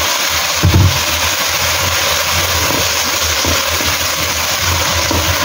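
Water sizzling and bubbling in a hot wok of browned pork ribs, onion, garlic and ginger, just after a small splash of water has gone in, as a spatula stirs it.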